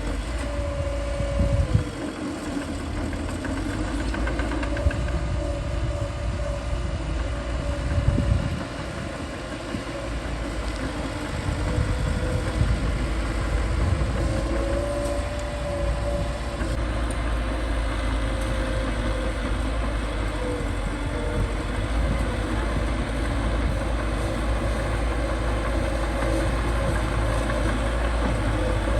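Bulldozer's diesel engine running steadily under load as it pushes sand, a deep rumble with a wavering whine that comes and goes. There are louder bumps about 2 and 8 seconds in.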